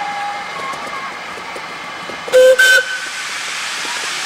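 Steam locomotive whistle giving two short blasts a little past halfway, over the steady running noise of a miniature steam locomotive passing close by.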